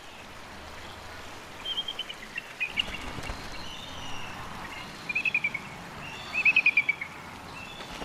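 Bald eagles calling: several short bursts of quick, high, falling chattering notes, the loudest two in the second half, over a faint steady outdoor hiss.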